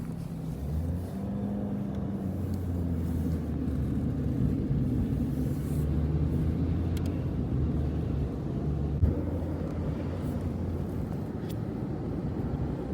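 A motor vehicle's engine running with a steady low rumble, its pitch shifting slightly now and then. A single short knock sounds about nine seconds in.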